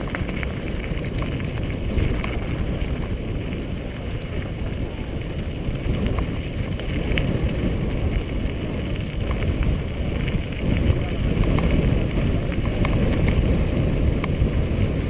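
Mountain bike riding fast over a dirt track: wind buffeting the microphone over the rumble of knobby tyres on packed dirt and gravel, with a few small clicks and rattles from the bike.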